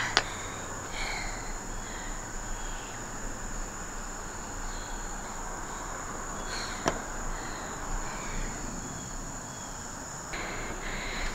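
Steady, high-pitched chorus of insects, with one sharp click about seven seconds in.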